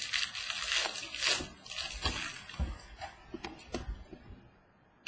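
Baseball trading cards being handled by hand: a rustling, sliding noise for the first couple of seconds, then a few light taps and clicks as cards are shuffled and set on the table.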